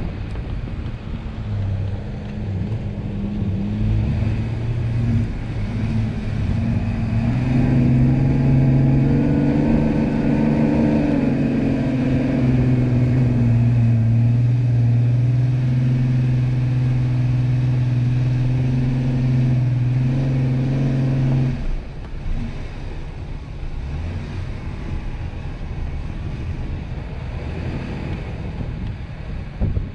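An off-road vehicle's engine working hard as it drives up a sand dune, its drone building and then holding steady under load. About two-thirds of the way through it eases off suddenly, as the vehicle crests the dune.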